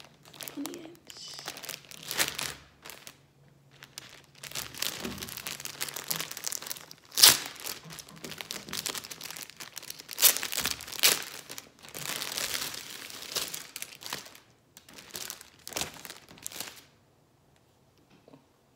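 Clear plastic packaging crinkling and rustling as it is handled and pulled open, in irregular bursts with a few loud crackles, then it stops near the end.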